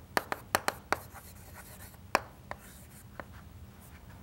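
Chalk writing on a chalkboard: a quick run of sharp taps in the first second, a single loud tap a little after two seconds, then a few lighter taps with faint scraping between them.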